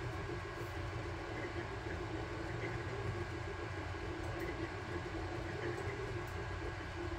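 Sunlu Terminator 3 3D printer running a print: stepper motors whirring with a warbling tone as the print head and bed move, over a steady hum from its fans.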